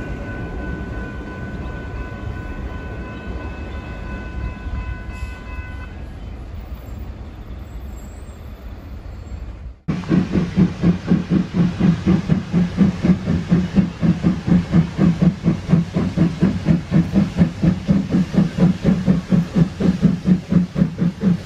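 Diesel locomotives rumbling away and fading, with a steady high ringing tone for the first few seconds. After a sudden cut about ten seconds in, an R-class steam locomotive working hard, its exhaust beating about three to four times a second, louder than anything before.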